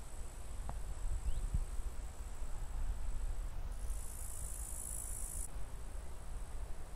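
Insects chirring in a high, steady tone, growing louder for about two seconds in the middle, over a low steady rumble.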